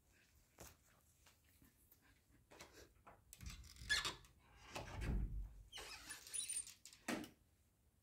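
A wooden interior door being opened by its metal lever handle: the handle and latch rattle and click about halfway through, a low thud follows as the door is pulled, then a short high squeak as it swings open and a final click.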